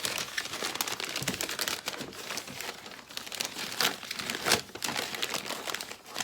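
Parcel packaging crinkling and rustling in irregular bursts as it is handled and unwrapped.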